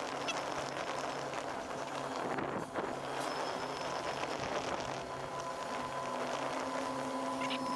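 A vehicle's engine and road noise, running steadily at low speed, with a faint constant hum and some wind on the microphone.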